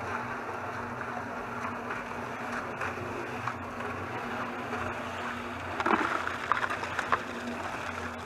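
Homemade cement mixer running: its electric motor hums steadily while the 55-gallon steel drum turns over a batch of wet concrete. A few louder knocks and clatters come about six to seven seconds in.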